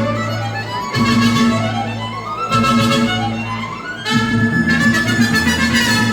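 Mariachi band playing, violins leading over a low bass line, in phrases that restart about every second and a half, with sliding violin notes.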